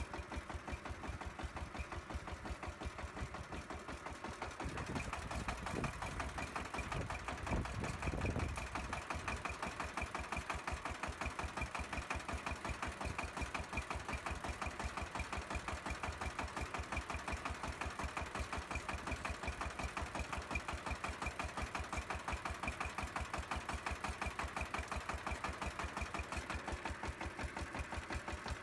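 A small machine's motor running steadily with a rhythmic knock, several beats a second. A louder low rumble comes in about five seconds in and stops about three seconds later.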